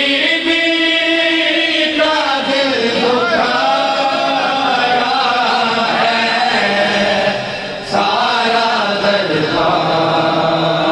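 Several men's voices chanting an Urdu noha, a Shia lament for Muharram mourning, together. There is a short break between lines about eight seconds in.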